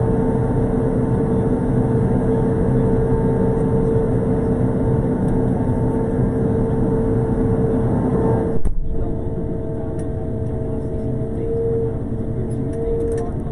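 Road sweeper running as it drives along, a steady drone with a constant whine over it. About nine seconds in there is a click, and the sound drops and gets quieter, with the whine still going.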